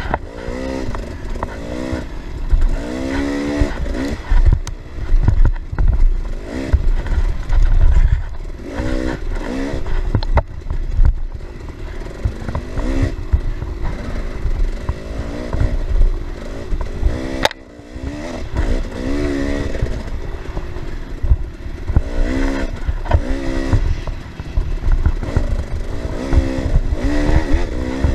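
Dirt bike engine revving up and down again and again as the rider works the throttle over rough trail, its pitch rising and falling, with low wind rumble and clatter from the bike. About halfway through there is a brief sharp drop.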